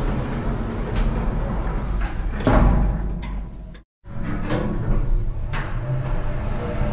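Elevator running with a steady low hum, with a louder door slide about two and a half seconds in. The sound breaks off for an instant about four seconds in, then the hum carries on with a few light clicks.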